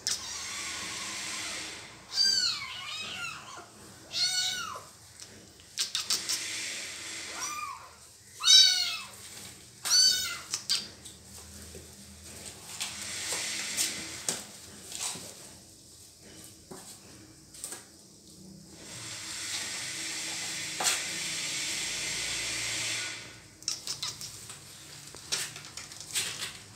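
A small kitten meowing in high, arching cries, about six of them in the first ten seconds, as the mother cat mouths it. Stretches of rustling noise come between the cries and for several seconds later on.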